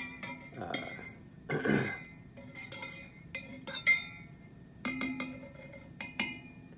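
A stirrer clinking against the inside of a coffee mug while coffee is stirred: a series of irregular clinks, several ringing briefly.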